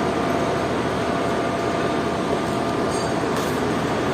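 Steady machinery drone with a constant thin whine running through it, and a few faint light clicks about three seconds in.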